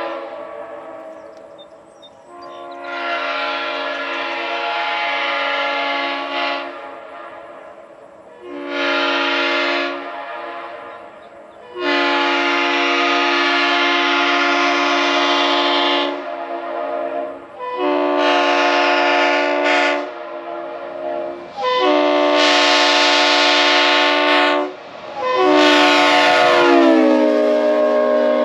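Leslie RS5T five-chime air horn sounding a series of blasts of varying length, a steady multi-tone chord, with one long blast in the middle. Near the end the whole chord drops in pitch.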